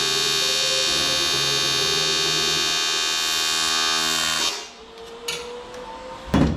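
Aluminum welding arc with a steady buzz that cuts off abruptly about four and a half seconds in, followed near the end by a single sharp knock.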